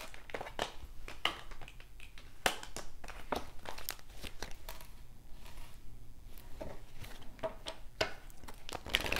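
Tarot cards being handled, shuffled and laid down on a stone countertop: irregular light card clicks, slaps and rustles.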